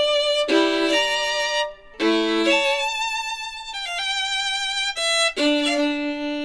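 Violin music with vibrato, long held notes changing pitch every second or so, played from a vinyl record through a Schiit Mani phono preamp. There is a brief break in the playing just before two seconds in.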